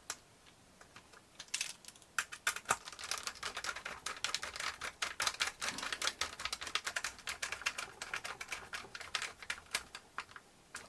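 Rapid, irregular clicking and tapping of small screws and plastic parts being handled and fitted by hand, starting about a second and a half in and thinning out near the end.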